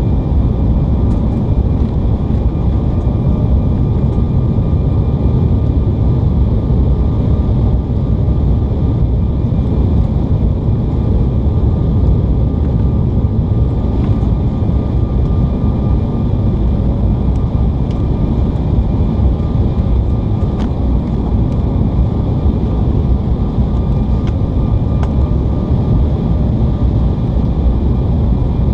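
Steady cabin noise inside an Embraer E175 jet on its descent to land, a loud, even, low rush of airflow and engines with a faint steady high whine on top.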